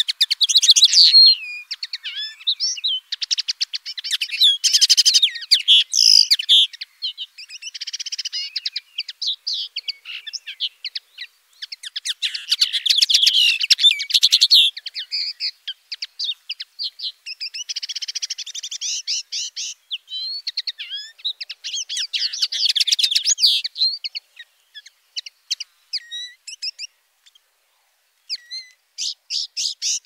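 Common linnet song: long runs of quick twittering notes and fast trills in phrases a few seconds long with short gaps between them, pausing briefly near the end.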